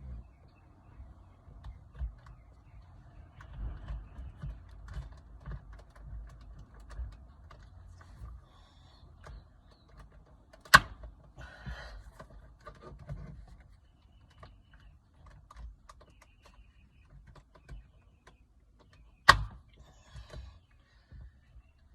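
Handling noise from fitting a mirror dash cam by hand: low rubbing and rustling with small clicks, and two sharp snaps, one about halfway through and one near the end.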